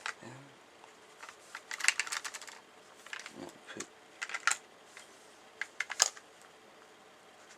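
Small plastic clicks and knocks from handling an electric airsoft pistol while its AAA batteries are taken out and refitted in the battery compartment. A quick flurry of clicks comes about two seconds in, followed by scattered single clicks and knocks, the sharpest near the end.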